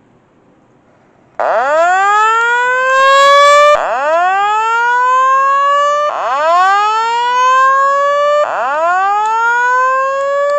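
Fire alarm speaker sounding a slow whoop evacuation tone: a loud, buzzy sweep that rises in pitch over about two and a half seconds, then drops and repeats. It starts about a second and a half in and sounds four times.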